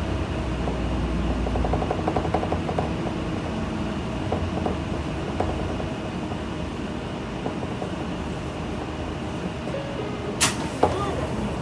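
Mitsubishi Fuso Aero Star city bus's diesel engine idling steadily, with two sharp clacks a little after ten seconds in.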